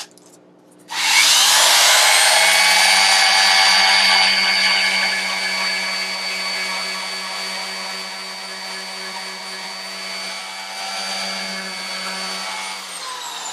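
Electric random orbital sander with 240-grit paper on a teak deck: it switches on about a second in, spins up and runs with a steady whine, then winds down near the end. This is the fine finishing pass over new Sikaflex deck seams.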